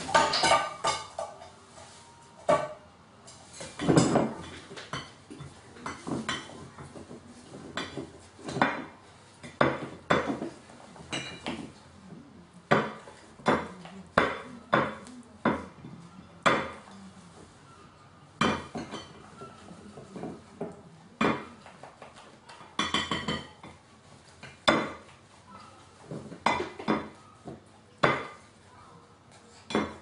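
A large gull's beak pecking and knocking at a ceramic plate: irregular sharp clinks and clatters, about one or two a second. It starts with a rush of wing flapping as the gull lands.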